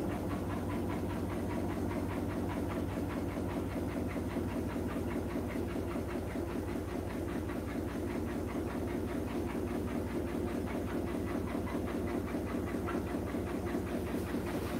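Hotpoint NSWR843C washing machine running mid-cycle: a steady machine hum with a fast, even pulsing.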